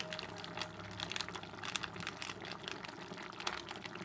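Coconut-milk curry gravy simmering in a pan, its bubbles bursting in irregular small pops and crackles.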